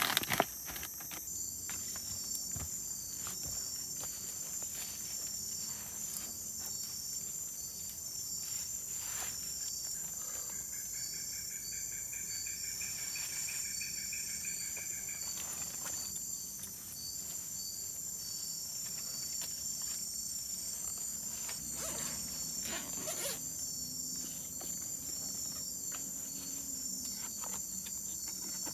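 Tropical rainforest insects: a steady high-pitched chorus with a rhythmic pulsing chirp. About ten seconds in, a second insect trills for about five seconds. A few faint clicks are scattered through it.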